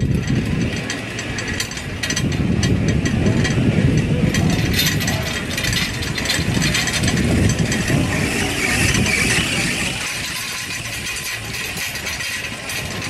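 Detachable double chairlift's station machinery running: a steady low rumble with a stream of metallic clicks and clatter as the chairs' grips and hangers pass through the station.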